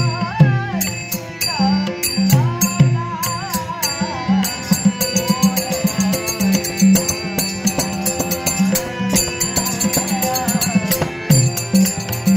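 Live devotional song with Dashavatar stage accompaniment: a male voice sings a winding melody over strokes of a two-headed barrel drum (pakhawaj) and small brass hand cymbals striking a steady beat, with a harmonium underneath. The voice is strongest in the first few seconds, and the drum and cymbals keep going throughout.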